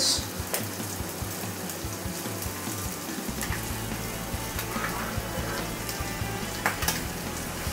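Ahi tuna patty searing in hot olive oil in a skillet: a steady sizzle with a few scattered pops.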